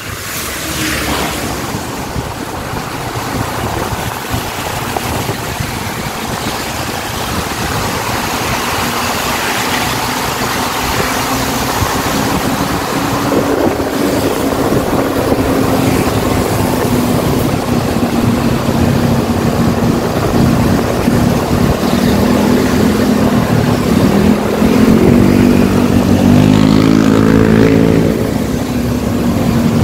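Traffic on a wet road: the diesel engine of an ALS intercity bus running as it drives ahead, over steady tyre and road hiss. A steady engine note holds through the second half and grows gradually louder.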